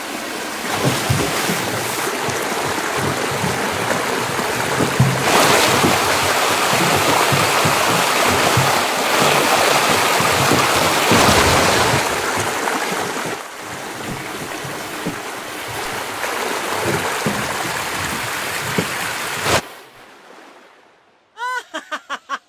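Loud, steady rush of water pouring down, with irregular splashing, which cuts off abruptly near the end. After a short lull comes a quick series of short, high, rising-and-falling voice-like sounds.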